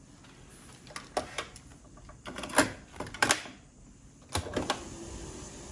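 Mechanical clicks and clunks from a Sharp 700 radio-cassette recorder's keys and tape mechanism being worked by hand to start the song. Then a faint steady hiss as the tape begins running.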